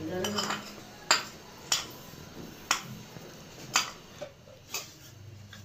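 A metal utensil clinking against a small steel cooking pot: about six sharp clinks, roughly one a second.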